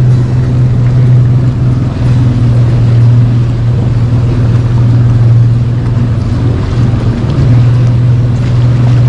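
Outboard motor of a bass boat running at a steady cruising speed, a constant low hum, with water rushing and splashing along the hull.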